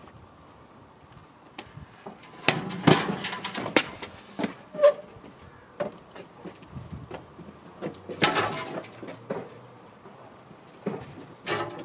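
Metal clanks, knocks and rattles from a towbar motorcycle rack and its loading ramp as a motorcycle is wheeled off it, with two longer clattering bursts, a few seconds in and again about two-thirds through.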